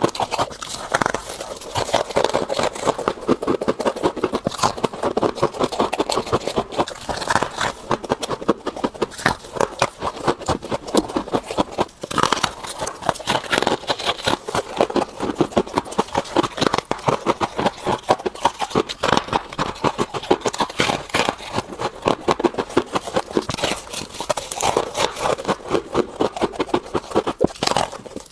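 Close-miked crunching and scraping of refrigerator freezer frost ice, a dense, unbroken run of crackling clicks.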